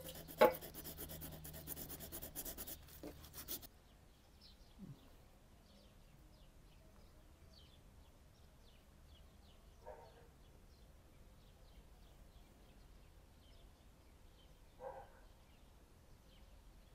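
Quiet outdoor background with faint, short bird chirps repeating throughout, and a few soft thuds. For the first few seconds a rustling noise with one sharp click covers it, then stops abruptly.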